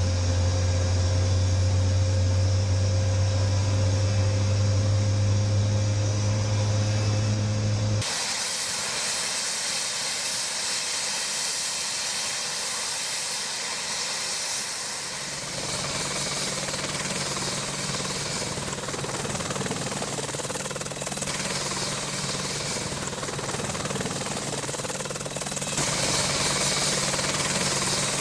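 Helicopter engine and rotor noise, changing abruptly between shots. A strong steady low hum with overtones runs for about the first eight seconds, then gives way to a hissing turbine rush, with a low steady drone rejoining about halfway through.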